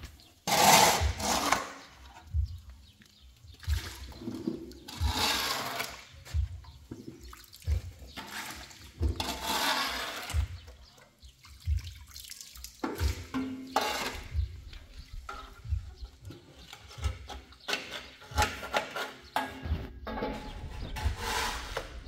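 Water scooped off a concrete floor with a metal dustpan and poured into a bucket: a splashing pour about every four seconds in the first half, then softer trickles, with small scrapes and knocks of the dustpan on the concrete throughout.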